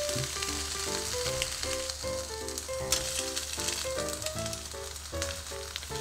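Steamed, banana-leaf-wrapped fish parcels sizzling steadily in a hot pan as they are grilled. Background music with a quick melody plays over it.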